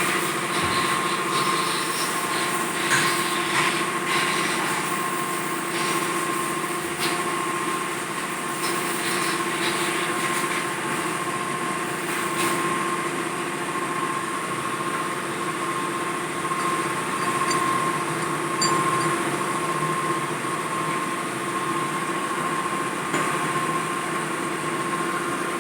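CNC lathe running steadily, turning a steel part: a constant hum with a high whine, and a few light ticks scattered through.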